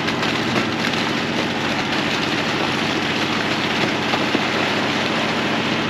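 Ramvac HX12 hydro-excavation vac truck running steadily with its PTO-driven blower engaged, a dense rattling mechanical noise, while its debris tank dumps mud slurry.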